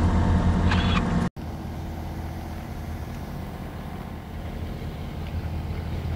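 A boat engine running steadily with wind and water noise. The sound breaks off for an instant about a second in and then carries on quieter.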